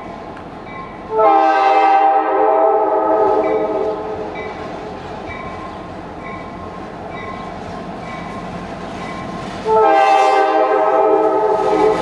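Norfolk Southern GP38-2 locomotive's multi-chime air horn sounding two long blasts, the first about a second in, the second starting near the end and still going, as the freight approaches. Under it a grade-crossing bell dings steadily, a bit under twice a second.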